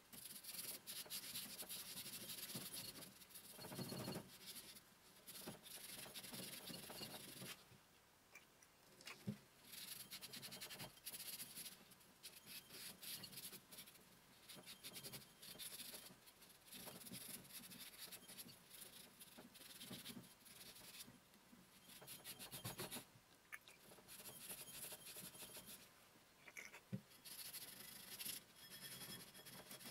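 Cloth rag faintly rubbing and wiping over a lathe countershaft's metal stepped pulleys and shaft, in irregular scrubbing strokes, with an occasional light knock of the parts being handled.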